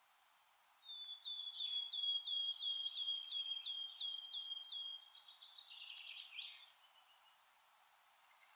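Wood warbler (Phylloscopus sibilatrix) singing one song phrase: starting about a second in, a series of sharp, high repeated notes at about three or four a second, running into a short shivering trill that stops near the end.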